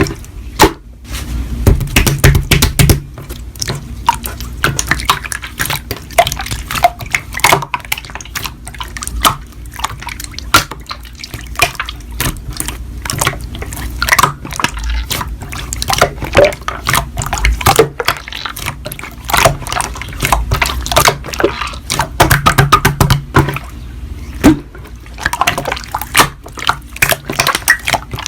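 Slime being squished and poked by hand: a dense run of wet clicks, pops and squelches.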